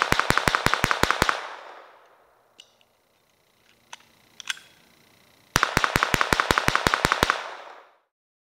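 Colt Government 1911 .22LR semi-automatic blowback pistol fired in fast strings, about seven shots a second. One string ends about a second in, a second string of about a dozen shots runs from about five and a half to seven seconds in, and a few faint clicks come in between.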